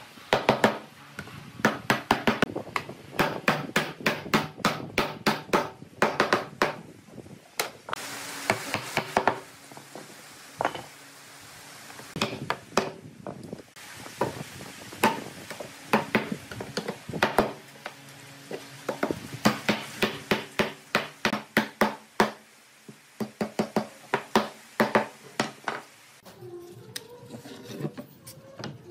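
Hammer driving nails into pallet boards: runs of quick, sharp blows, several a second, each with a short ringing, broken by brief pauses. A scraping, rasping noise lasts about a second and a half some eight seconds in.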